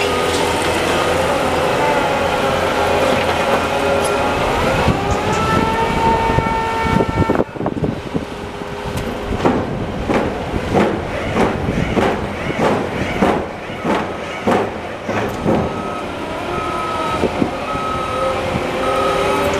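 Heavy construction machinery running, its engine pitch rising about five seconds in, then a series of heavy knocks, roughly one and a half a second, for about seven seconds before the engine sound returns with a short repeated beeping near the end.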